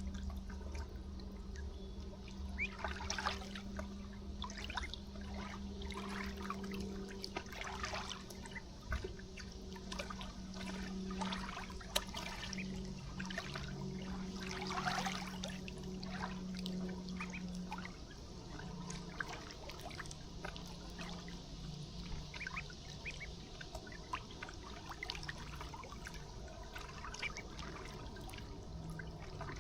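River water trickling and lapping, with many small splashes, over a steady low hum that drops slightly in pitch about two-thirds of the way through.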